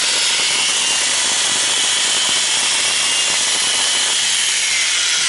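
Bosch GWS 1000 angle grinder running with no load, a loud steady motor noise. It is sparking, running unevenly and lacking power, which the owner takes for a fault in the brushes.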